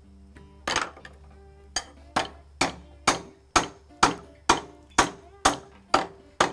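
Wooden mallet striking the end of a split cedar blank, driving it down through a 9/16-inch hole in a steel plate (a dowel plate) clamped in a vise, which knocks off the corners to round it. About thirteen steady blows, roughly two a second, starting a little under a second in.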